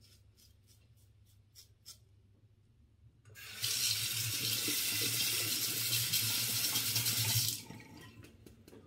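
A few faint scraping strokes of a four-blade razor on lathered stubble, then a bathroom tap running steadily into the sink for about four seconds, starting about three seconds in and stopping near the end.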